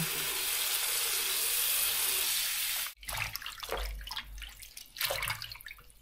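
Kitchen tap running into a stainless-steel sink of water and kale leaves. It shuts off abruptly about three seconds in, and hands then slosh and swish the leaves in the water in short, irregular splashes.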